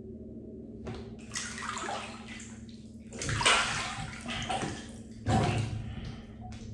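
Bath water sloshing and splashing in a handful of surges, the loudest about three and a half seconds in and again near the end, over a steady low hum.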